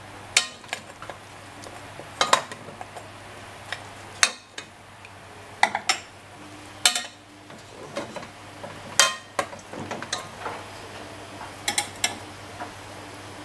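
A metal spoon clinking and scraping against an aluminium pot and a clay tagine dish as pieces of boiled lamb are lifted from one to the other. The knocks are sharp and irregular, coming about every second or two.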